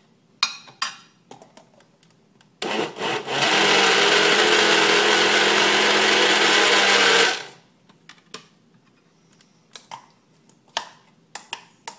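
Countertop blender starting with a couple of short pulses, then running steadily for about four seconds and cutting off, as it churns frozen strawberries into a thick, ice-cream-like mix. A few clicks and knocks come before and after.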